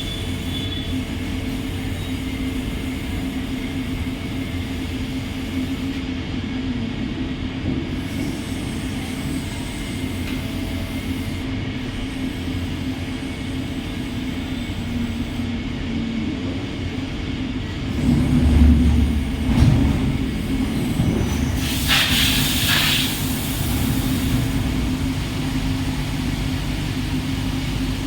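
CNC machine running with a steady mechanical hum, growing louder with a low rumble about two-thirds of the way through, followed by a brief hiss.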